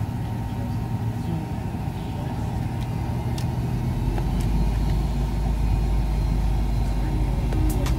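Cabin noise inside an MD-83 airliner taxiing: a steady low rumble and hum from the tail-mounted engines, growing louder and deeper about halfway through.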